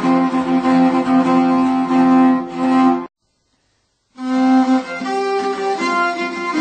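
Instrumental music led by bowed strings playing sustained notes. It cuts out to silence for about a second just before the middle, then starts again.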